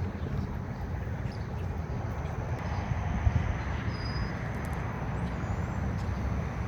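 Steady low rumble of outdoor background noise, with a faint short high chirp about four seconds in.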